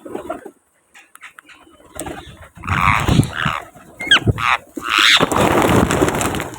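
Parrot squawking: two harsh calls, about three and five seconds in, with a short whistled glide between them.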